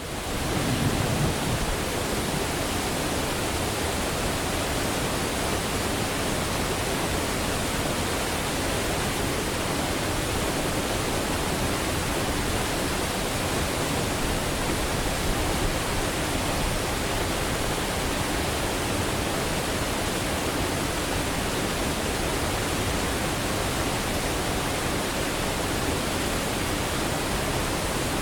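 Forest waterfall rushing, a steady even wash of falling water.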